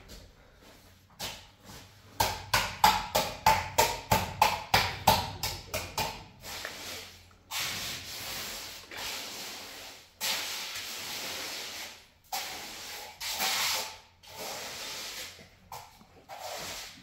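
Hand trowel scraping and smoothing a freshly poured wet cement floor: a quick run of about a dozen short strokes, then several longer sweeping strokes.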